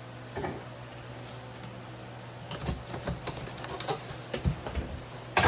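Cardboard packaging being opened by hand: scattered clicks, scrapes and rustles starting about halfway through, with a sharper crack near the end, over a steady low hum.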